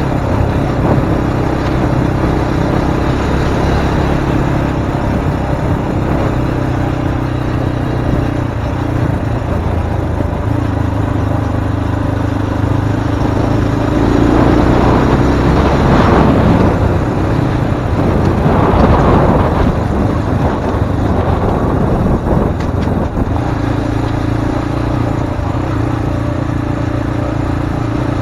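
Zongshen RX3 Cyclone's 250 cc single-cylinder engine running steadily while riding, with two louder rushes of noise around the middle.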